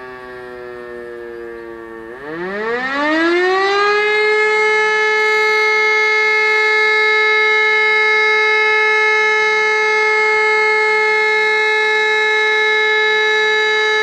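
Siemens E57 motor siren sounding the fire-alarm signal. Its falling tone bottoms out, then about two seconds in the siren spins up, its pitch rising steeply into a loud, steady wail that it holds: one of the sustained tones of the alarm.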